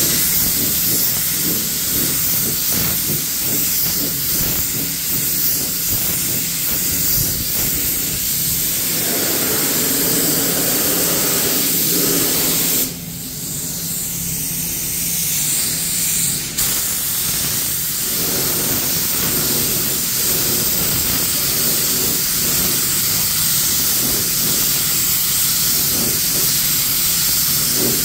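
Compressed-air gravity-feed spray gun hissing steadily while spraying primer onto a car panel. The hiss drops away for a few seconds about halfway through, then resumes.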